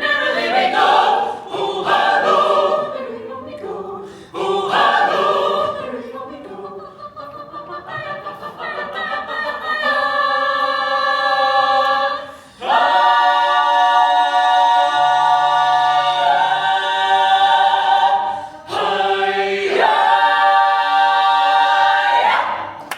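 A cappella choir singing without accompaniment, closing a holiday song with long held chords. The last chord cuts off just before the end.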